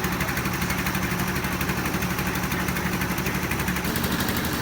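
A small engine running steadily at an even speed, with a rapid, regular pulse.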